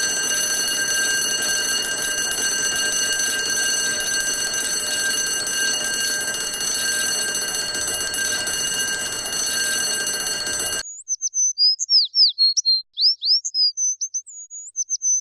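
Electronic alarm buzzing steadily for about eleven seconds, then cutting off abruptly. A warbling, repeated chirping electronic tone follows.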